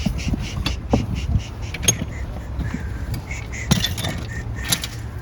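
Subaru Impreza rear wiper, running on its newly replaced motor, working across the hatch glass: creaking with a sharp click about once a second.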